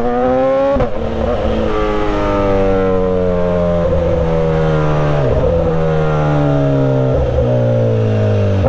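BMW S1000RR inline-four superbike running a straight pipe (mid pipe fitted, no silencer), loud and deep. The revs rise briefly, then from about a second in the engine note falls steadily as the throttle is rolled off and the bike slows, with a few short breaks in the note along the way.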